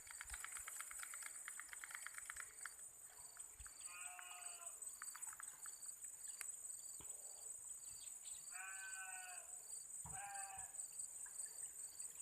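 Faint outdoor ambience of insects: a steady high buzz with a regular pulsing chirp, a fast rattling trill for the first two seconds, and three short bleat-like animal calls about four, nine and ten seconds in.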